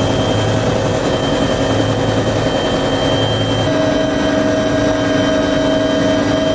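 Helicopter in flight heard from inside the cabin: a loud, steady rotor and engine din with a steady high whine over it.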